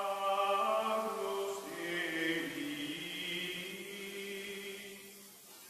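Outro music: a slow choir-like chant of long held voices, sinking quieter near the end.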